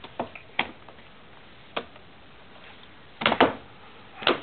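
A baby's hands slapping at a laptop keyboard. The key clatter comes as irregular hits: a few light ones early, a close flurry of heavier hits a little past three seconds in, and one more hard hit near the end.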